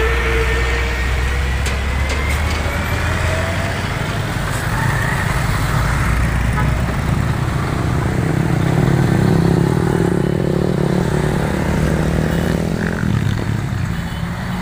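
Road traffic passing close by. A heavy truck's engine rumbles past first, then a car and several motorcycles drive by one after another, and an engine note swells in the second half.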